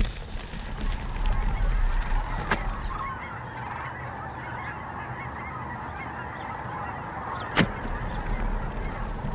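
A large flock of geese honking, many overlapping calls at once, under low wind rumble on the microphone, with two sharp clicks partway through.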